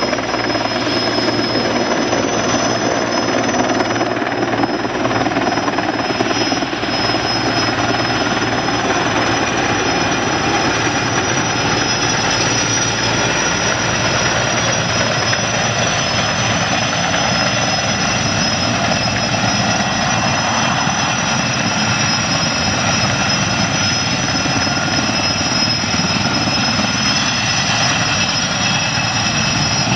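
Erickson S-64 Air-Crane heavy-lift helicopter hovering low as it comes in to land. The big rotor beats rapidly and steadily over a constant high turbine whine.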